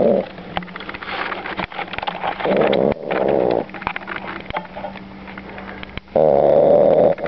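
A puppy snoring loudly in its sleep. Each inhaled snore is a rasping buzz about a second long, coming roughly every three and a half seconds, with softer breathing between.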